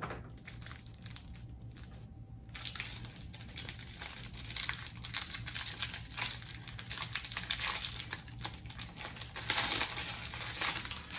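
A trading-card pack wrapper being torn open and crinkled by hand: scattered crackles at first, then steady crinkling from a couple of seconds in.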